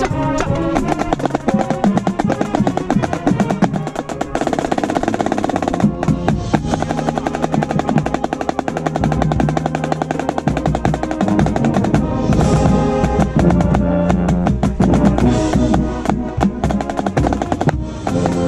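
Marching band playing, with a marching snare drum struck right at the microphone: fast stick strokes and rolls over the band's steady pitched tones.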